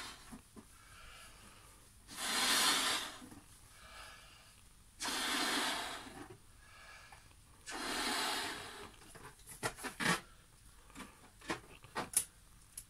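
Three long breaths blown by mouth into a latex balloon, each about a second, inflating it. From about nine seconds in, short squeaks and rubs of the stretched latex as the balloon's neck is knotted.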